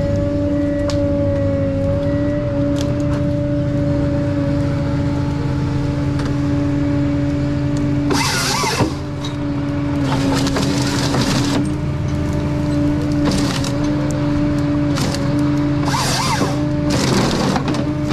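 Ponsse Scorpion King forest harvester running: a steady diesel drone with a strong hydraulic whine that dips slightly in pitch under load. Short noisy bursts from the H6 harvester head working the stems come about eight seconds in, again around ten to eleven seconds, and three more times near the end.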